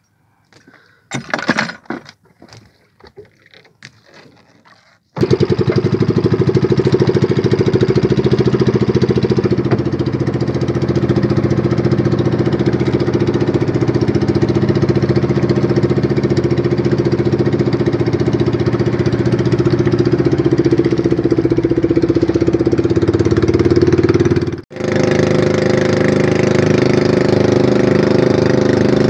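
Engine of a small motorized outrigger fishing boat (bangka) running steadily at an even pitch as the boat travels. It starts abruptly about five seconds in after a few faint knocks, and drops out for a moment near the end.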